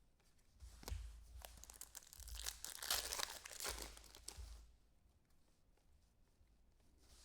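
Foil trading-card pack wrapper being crinkled and torn open, with a few sharp clicks, for about four seconds before it goes quiet.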